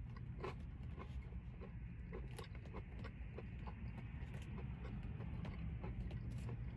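Close-up chewing of a breaded chicken tender: a run of small irregular clicks and crunches from the mouth over a steady low hum.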